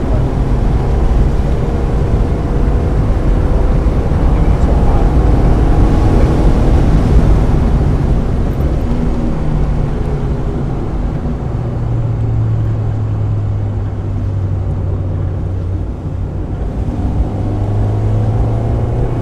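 1995 Mazda Miata's 1.8-litre four-cylinder engine pulling hard through the first half, easing to a lower steady note past the middle, then building again near the end, over a steady hiss of tyres and spray on a wet track.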